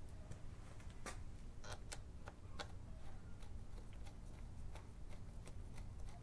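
Scattered light metal clicks and ticks as an aftermarket clutch lever is worked into its perch and lined up for its pivot bolt, over a low steady hum.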